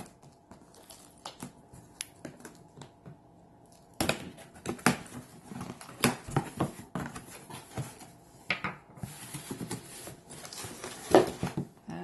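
Cardboard humidifier box being opened by hand: a few faint clicks, then from about four seconds in a busy run of cardboard scraping, rustling and knocking as the flaps and packing inside are handled, with one louder knock near the end.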